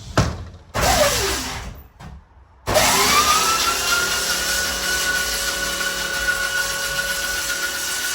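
Electric floor sander switched on briefly and winding down, then switched on again about two and a half seconds in. Its motor whine rises to speed and then runs steadily.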